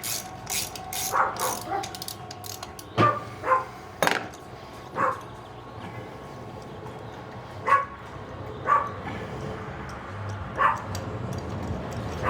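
A dog barking, about seven short barks spaced irregularly.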